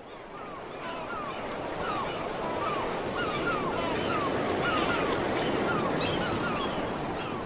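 Sea surf washing steadily, fading in from silence, with birds giving short falling calls a few times a second over it.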